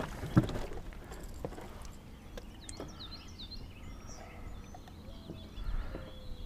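A couple of sharp knocks at the start as a catfish is swung into the boat and handled. Then small birds chirp in the background over a low rumble of wind.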